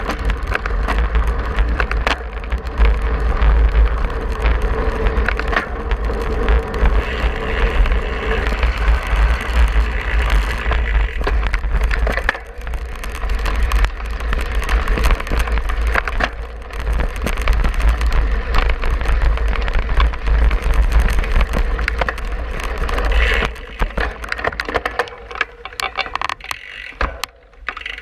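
Wind rushing over the camera microphone and a cyclocross bike rattling over gravel and grass at race speed. The noise eases and thins near the end as the bike slows.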